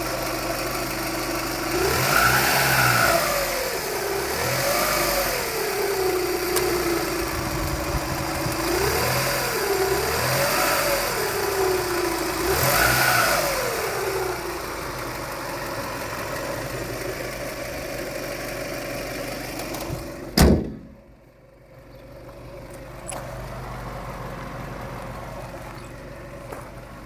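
Toyota Camry engine at 245,000 miles, revved up and back down about five times, then settling to a steady idle, with a whirring that the owner puts down to the water pump near the timing belt. A single sharp knock is heard about 20 seconds in, after which the running sounds quieter.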